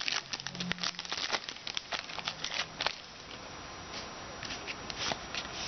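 Crinkling of a Topps Unrivaled football card pack's wrapper and cards being handled: a dense run of crackles and clicks for about three seconds, then quieter with a few scattered clicks.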